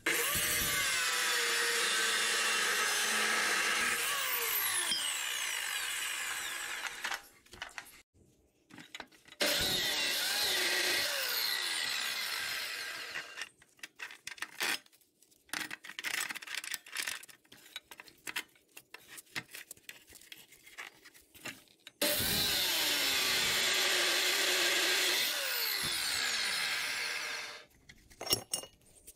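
Electric chop saw cutting steel angle iron, three times: each cut is a loud grinding rasp whose pitch falls and fades as the motor winds down. Between cuts come light metallic clicks and knocks as the steel is shifted and clamped in the saw's vise.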